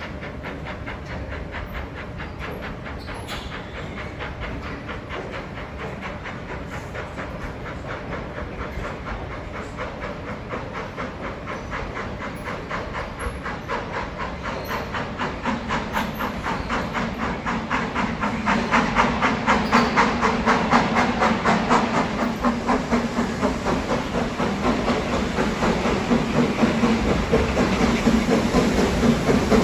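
GWR Castle class 4-6-0 steam locomotive 5043 Earl of Mount Edgcumbe working through a tunnel towards the station, its exhaust beating quickly and evenly with a steam hiss. It grows louder from about halfway in as the engine nears.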